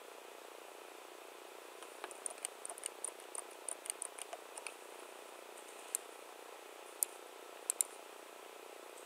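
Computer keyboard typing: a quick run of key clicks about two seconds in, then a few single clicks later, over a steady hiss.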